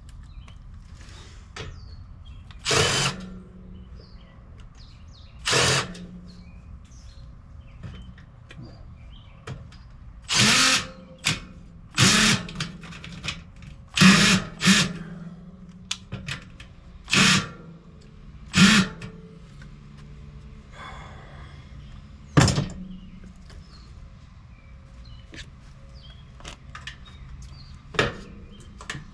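Power drill or driver run in about ten short bursts of roughly half a second each, spaced irregularly, as screws are driven or backed out.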